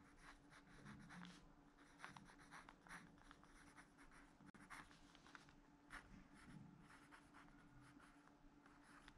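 Pencil writing on paper: faint, irregular scratching strokes as a word is written out by hand.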